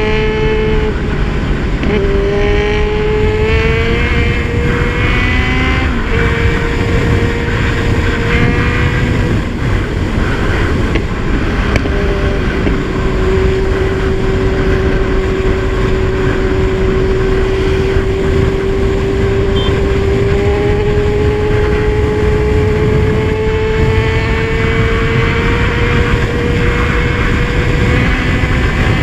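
Kawasaki Z1000 inline-four engine running steadily under way, heard over heavy wind rumble. Its pitch steps up and down a few times in the first several seconds, then climbs slowly through the second half.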